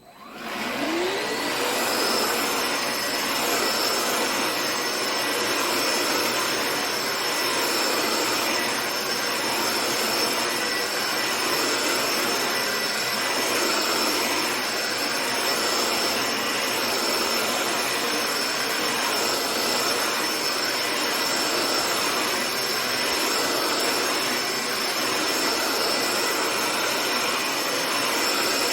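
AEG QX7-1ULTAN cordless stick vacuum switched on: its motor spins up with a rising whine over about two seconds, then runs steadily with a high whine over the rush of air.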